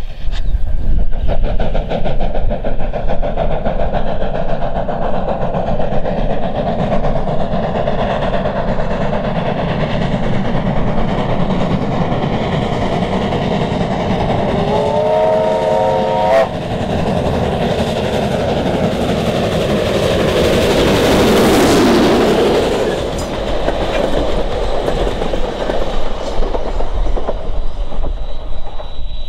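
NZR Ja class 4-8-2 steam locomotive working towards the microphone and past it, its exhaust and running gear sounding steadily. About halfway through it blows its whistle once, for about a second and a half. A little later it passes close by, the sound swelling and then dropping in pitch.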